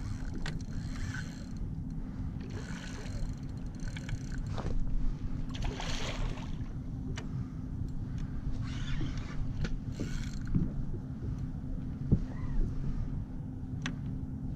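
Water sloshing and splashing around a plastic fishing kayak as a hooked bluefish thrashes near the surface, with several short splashes over a steady low rumble.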